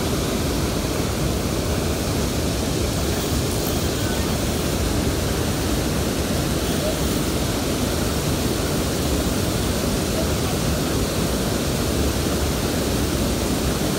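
Water pouring over a low river dam and churning in the current below: a steady, even rush.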